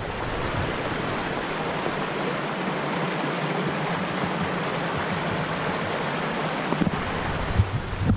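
Fell stream water rushing steadily over rocks at Cautley Spout, a constant even hiss. A few low gusts of wind hit the microphone near the end.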